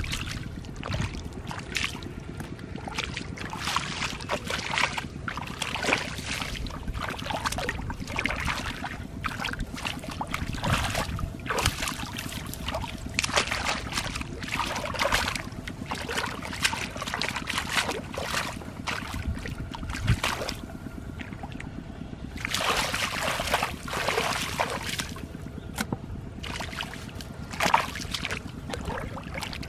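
Hands and bare feet splashing and sloshing through shallow muddy water and grass, groping for fish, in irregular bursts over a steady low rumble.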